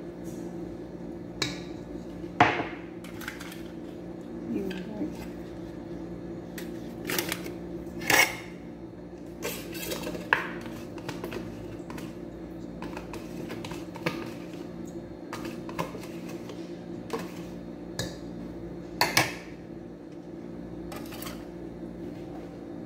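Irregular clinks and knocks of a metal spoon against a stainless steel mixing bowl and a plate, a few of them sharper than the rest, over a steady low hum.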